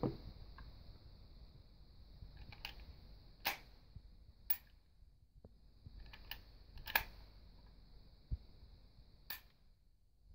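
Sharp metallic clicks from a Denix replica Luger P08 pistol's mechanism being worked by hand as the trigger is pulled: about eight clicks at irregular intervals, the loudest about three and a half and seven seconds in.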